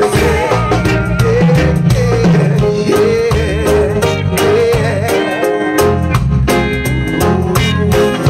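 Live reggae band performing: a vocal group sings together over drums and electric guitar, with held, wavering sung notes and a steady beat.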